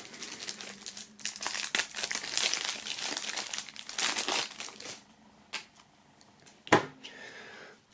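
Plastic shrink-wrap film being torn and peeled off a CD digipak, crinkling for about five seconds. Then two knocks, the second louder.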